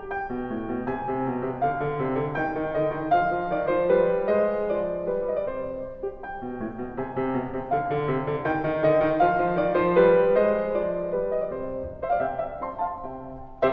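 Background piano music: a run of notes with no speech.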